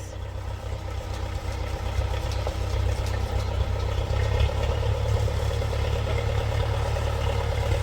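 Old Case 580CK backhoe's engine running steadily under a little throttle. Its low rumble picks up and grows slightly louder about four seconds in.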